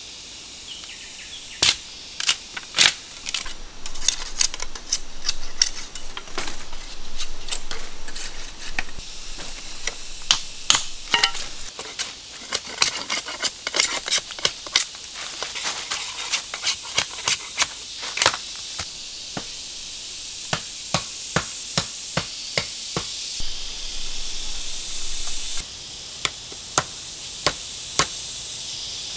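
Machete blade striking and splitting bamboo: a long series of sharp knocks, irregular and crowded at first, settling near the end into single strikes about one every half second to a second. A steady high insect drone runs underneath.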